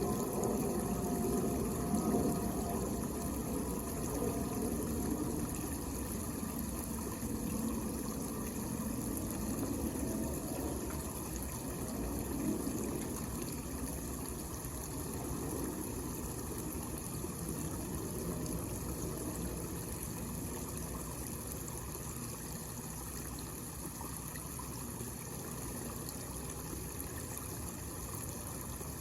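Homemade miniature waterfall running into a small artificial pond: water splashing and trickling steadily, a little fuller in the first part and then easing slightly.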